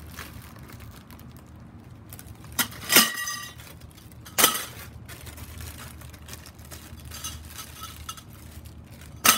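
Metal greenhouse-frame poles clinking and clanking against each other as they are handled: two knocks close together about three seconds in, another at about four and a half seconds, and a last one near the end, the louder ones ringing briefly.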